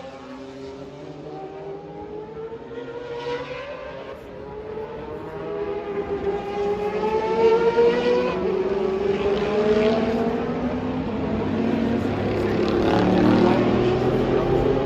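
Four-rotor rotary engine of a Mazda Group C racing prototype accelerating hard. Its pitch climbs in long sweeps, dropping back at gear changes about four and eight seconds in, and it grows louder as the car approaches.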